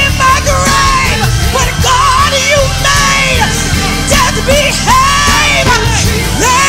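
Live gospel praise music: held low instrumental notes under worship leaders' loud, sliding sung cries and yells.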